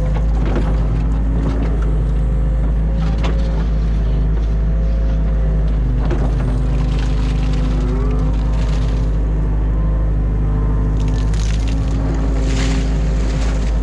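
New Holland Kobelco E50.2 mini excavator working, heard from the cab: its diesel engine runs steadily under load while the hydraulic whine shifts in pitch as the arm digs silt and swings. Several short bursts of rushing noise come and go.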